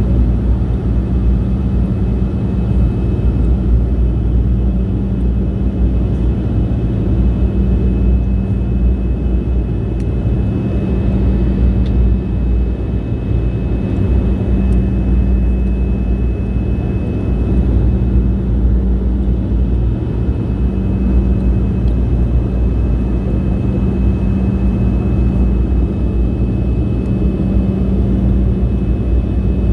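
Steady engine and airflow noise inside an airplane cabin in cruise flight: a constant low drone with a steady hum and a faint high whine running through it.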